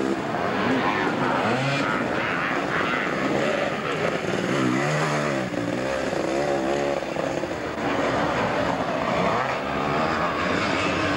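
Motocross sidecar outfits' engines revving hard on the track, pitch rising and falling as they accelerate, shift and back off, with more than one machine heard at once.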